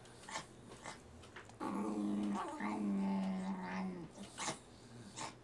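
A dog growling low and steady over its bowl of ice cream, one held growl of about two and a half seconds in the middle, with a few short clicks from the bowl around it.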